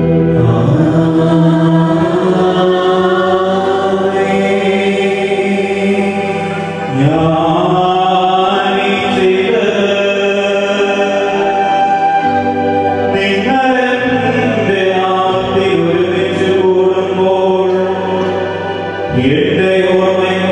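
Liturgical chant sung in long, sustained phrases with music, pausing briefly about every six seconds.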